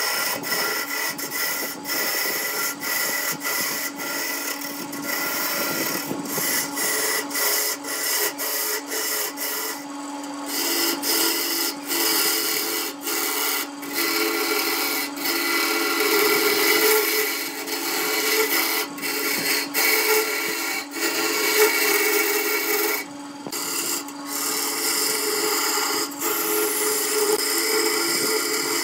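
Small electric wood lathe running with a steady motor hum while a hand-held turning chisel cuts a spinning glued-up wooden vase blank. The cutting is a continuous scraping hiss of shavings, broken by many short breaks.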